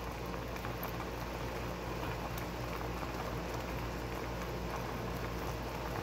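Water boiling with ramen noodles in a Jetboil MiniMo cooking cup, bubbling steadily, with a few faint light clinks of a metal fork stirring in the pot.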